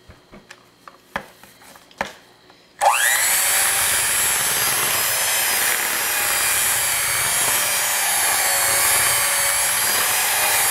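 Electric hand mixer starting about three seconds in, its motor whining up to speed, then running steadily on low speed as the beaters work a crumbly flour, butter and egg mixture toward a dough. A few light clicks come before it starts.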